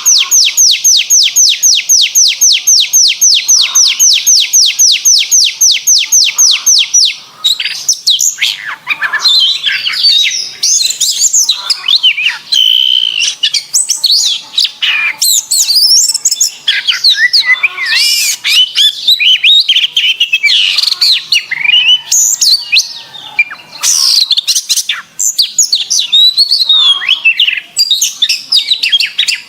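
Domestic canary singing. It opens with a fast trill of identical falling notes, about seven a second, then breaks about seven seconds in into varied warbling with rolls, sweeps and a short held whistle.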